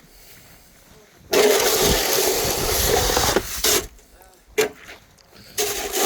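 Snow shovel scraping along the pavement in a long push of about two seconds, then two short scrapes and a second push near the end.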